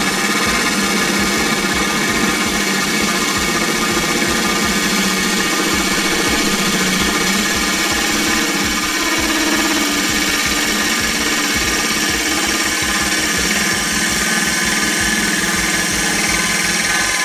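Milwaukee Fuel cordless drill running a water-cooled diamond hole saw through aquarium glass: a steady motor whine with grinding from the cut. It runs loud and even, with no let-up.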